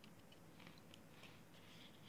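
Near silence with faint small ticks of steel feeler gauge blades being fanned and handled.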